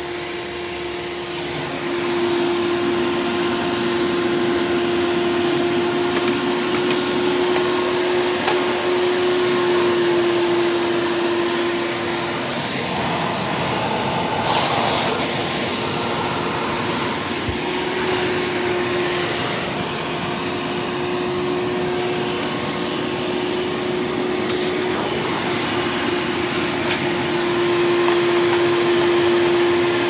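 1995 Hoover Power Drive Supreme upright vacuum running in tool mode, a direct-air machine with an upgraded fan impeller, drawing air through its attached hose. Its steady motor-and-fan hum gets louder about two seconds in, drops back for a few seconds in the middle with a couple of brief knocks, then returns.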